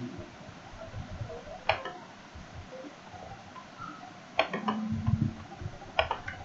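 A few sharp clicks in small clusters, spaced a couple of seconds apart, over faint room noise. A short low steady tone comes in under the second cluster.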